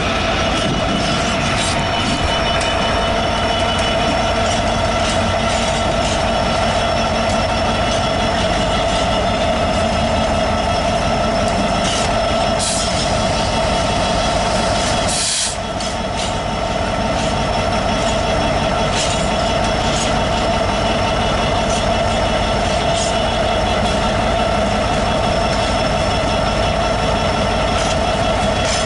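Class 66 diesel-electric freight locomotive with a two-stroke EMD V12 engine running steadily under power while hauling a freight train, heard from alongside together with its wheels on the rails. The level dips briefly about halfway through.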